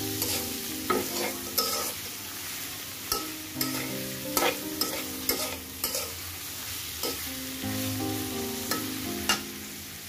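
Prawns with onion and green chillies sizzling in hot oil in a black wok, while a metal spatula stirs them with irregular scrapes and knocks against the pan.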